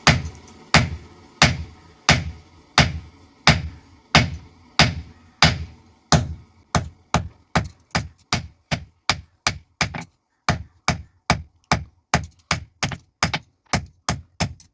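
Steady series of hammer blows on steel on an anvil, forging a knife blade from leaf-spring steel; each strike rings briefly. The blows come about one and a half a second, then quicken to about two and a half a second after roughly six seconds.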